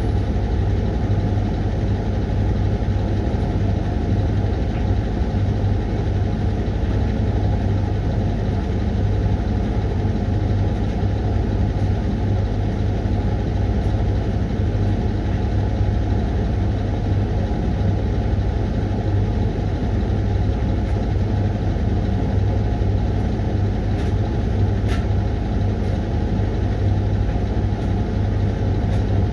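Hoover washing machine running its Refresh 20 programme, giving a steady, unbroken low hum.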